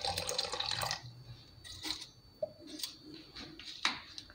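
Water pouring into a steel mixer-grinder jar onto curd, stopping about a second in, followed by a few faint clicks and taps.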